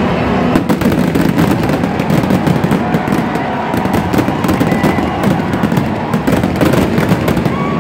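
Aerial fireworks shells bursting in a dense barrage: many rapid, overlapping bangs and crackle with no pause between them.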